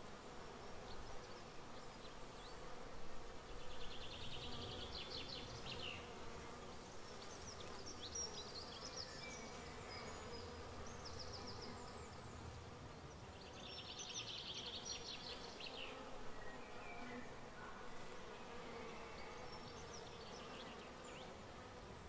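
Summer countryside ambience, faint: insects buzzing in a steady low hum, with two buzzy trills a couple of seconds long about ten seconds apart and scattered high chirps of birds.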